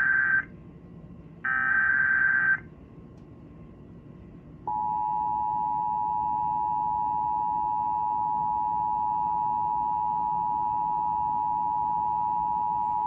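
Emergency Alert System tones on a radio broadcast: the end of the SAME digital header, two bursts of warbling data tones about a second long each, then after a pause of about two seconds the EAS two-tone attention signal (853 and 960 Hz together) starts and holds steady, announcing a severe thunderstorm warning.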